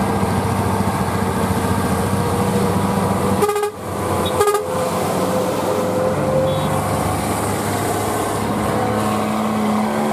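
Diesel trucks and cars labouring up a steep hill, led by a bonneted Mercedes-Benz tow truck pulling a Scania tractor unit backward. The engines run steadily under load, with a whine that rises slowly, and a horn toots briefly near the middle.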